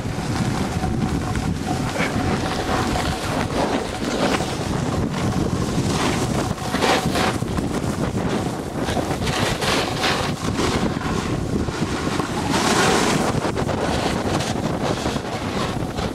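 Wind rushing over the microphone of a camera carried by a snowboarder riding downhill, mixed with the board's edge scraping across snow in repeated swells.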